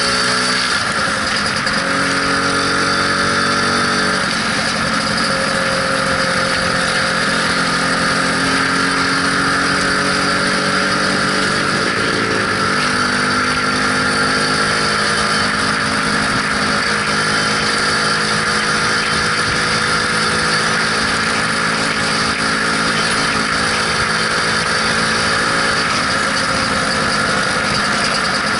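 Lambretta SX200 scooter's two-stroke single-cylinder engine running under way, heard from the saddle, with wind and road rush. The engine pitch steps a couple of times, about four seconds in and again about twelve seconds in, as the rider changes speed.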